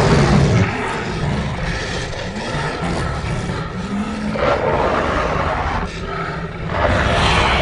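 Sound-effect vocalization for a Megalania, an extinct giant lizard: a low, rough, continuous growling roar that swells louder at the start, about four and a half seconds in and near the end.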